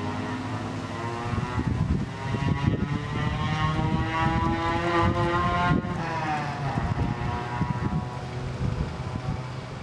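Ford Mustang engine cranking and catching on gasoline squirted into the intake, rising in pitch for a few seconds, breaking off sharply about six seconds in, then running down. It fires only on the squirted fuel, which points to a fuel-delivery fault: the fuel pressure reads zero.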